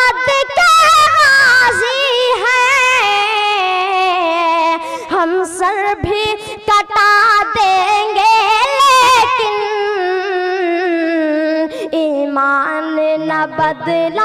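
A boy singing a naat unaccompanied into a microphone, in long held lines with a wavering, ornamented pitch that slowly sinks lower through the phrase.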